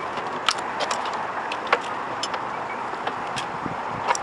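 Scattered light clicks and taps of hand work on a car's plastic interior door panel, over a steady background hiss.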